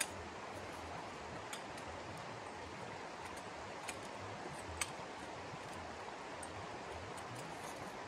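Steady rushing of running stream water, with a few light clicks about a second and a half, four and five seconds in.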